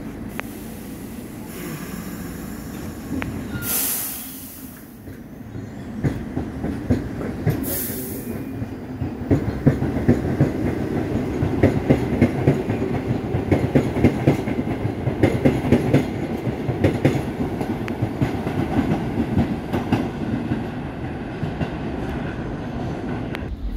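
R62A subway train pulling out of an elevated station: a few short hisses of air in the first several seconds, then a steady clatter of steel wheels knocking over rail joints, loudest about halfway through.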